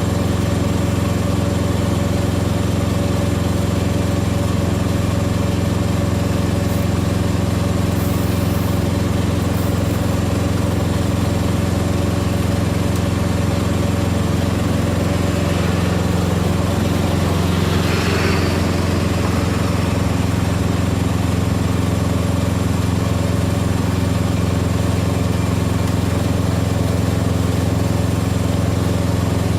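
A semi truck's diesel engine idling steadily, a constant low hum. Around the middle, a brief higher-pitched sound swells and fades over it.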